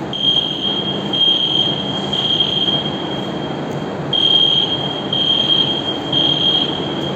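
Fire alarm hooters sounding a high electronic tone that pulses about once a second, set off by a manual call point during a fire alarm system test. Under it, the steady rush of the overhead fans started by the alarm.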